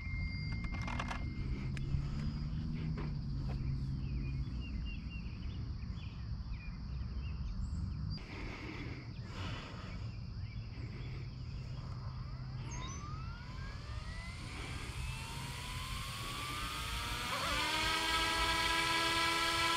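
Electric motor and rotor of a YXZNRC F09 Black Hawk RC helicopter spooling up on the ground: a whine that rises in pitch from about twelve seconds in and settles into a steady, louder whine near the end.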